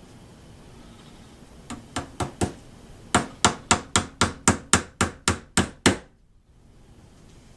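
Hammer driving small 1-inch nails into a wooden beehive frame, fastening the bottom bar to the side pieces. It gives four light taps, then eleven harder blows at about four a second, which stop about six seconds in.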